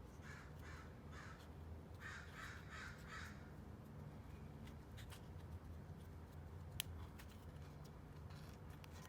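Faint crow cawing: two runs of four caws, about three a second, in the first few seconds. Later come a few light clicks and one sharp click about two-thirds of the way through.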